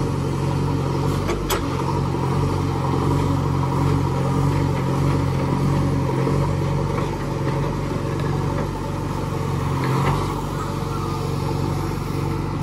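JCB 3DX backhoe loader's diesel engine running steadily as the backhoe digs and lifts a bucket of soil. A few faint clicks of stone or metal come about ten seconds in.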